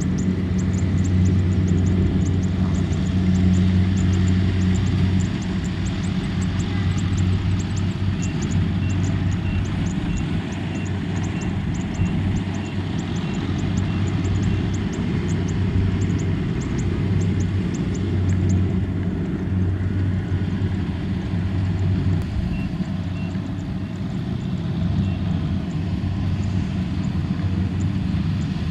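Kubota M6040SU tractor's four-cylinder diesel engine running steadily under load as it pulls a trailer of rice sacks, a low drone that rises and falls slightly in level.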